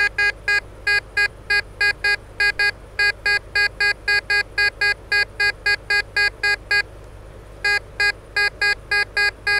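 Tesoro DeLeon metal detector beeping as its coil passes over a buried target, short, evenly pitched beeps about three a second, with a brief pause about seven seconds in. The beeps mark a target reading around 30 to 40 on the conductivity scale, with a slightly jumpy signal, which turns out to be a pull tab.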